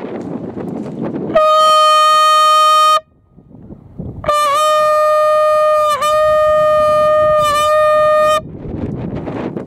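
Hunting horn blown close by: one steady note for about a second and a half, then after a short gap a longer note of about four seconds that wavers briefly three times. Wind rushes on the microphone before and after the blasts.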